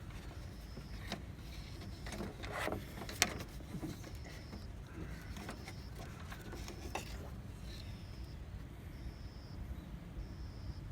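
Scattered clicks and knocks of hand tools and engine-bay parts being handled during a drive-belt change, with one sharp click about three seconds in, over a steady low hum.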